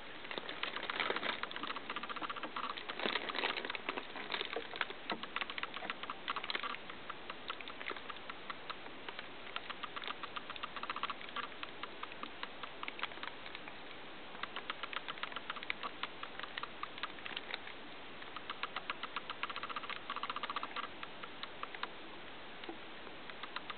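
Hamster sniffing hard and clicking its claws on the plastic top of an electronic keyboard: runs of fast, small ticks with brief pauses between them.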